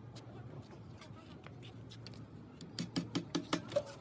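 A quick run of about seven sharp taps or knocks, starting near the end, over a steady low hum.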